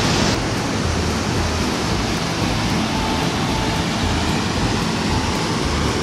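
Mountain river running through rocky rapids: a steady rush of white water.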